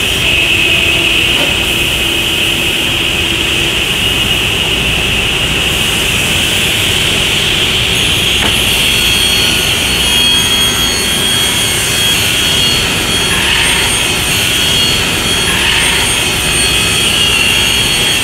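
Selco EB 120 CNC beam panel saw running with its dust extraction: a loud, steady mechanical noise with a high whine. A single knock comes about eight and a half seconds in.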